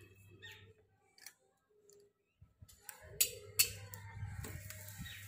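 Cooking utensils clicking and scraping while parathas are made on an iron griddle: faint light clicks at first, then two sharp clicks a little after three seconds in, followed by a low steady rumble.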